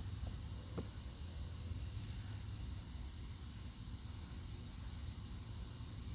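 Night-time outdoor ambience: a steady high-pitched insect trill, crickets, over a low steady rumble, with one faint click about a second in.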